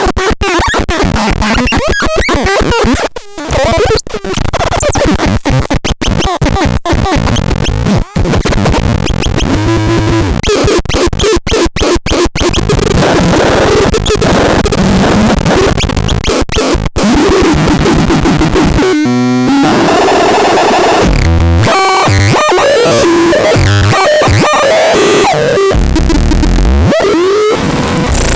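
Harsh, loud electronic noise from the BaIOTEX 03 noise synthesizer: a dense glitchy wash broken by rapid stutters and sudden cut-outs, turning in the last third into choppy, stepped low tones.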